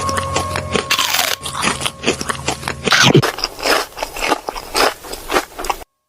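Mukbang-style eating sound effects: rapid, crunchy bites and chewing of fruit, one after another, cutting off abruptly near the end.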